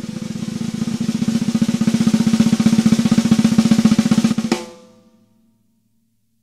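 Sonor Select Force 14x6.5 snare drum with wood hoops played as a fast roll that grows louder, then stops about four and a half seconds in; the drum rings out briefly and goes silent.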